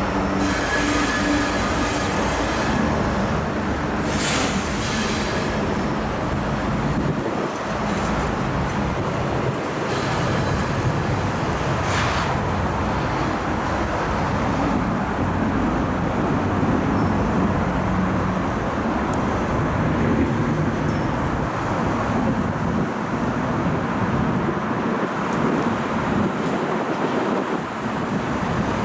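A loaded coal unit train rolling past: the steady rumble and clatter of heavy hopper cars' wheels on the rails. A low diesel engine drone shows in the first couple of seconds, and a few brief high wheel squeaks come at about 4 and 12 seconds.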